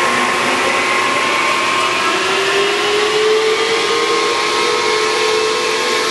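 Harrison 21-inch centre lathe running under power with its spindle at 1,000 RPM: a steady whirring from the headstock gearing and the drive, with a whine that rises slightly in pitch about halfway through.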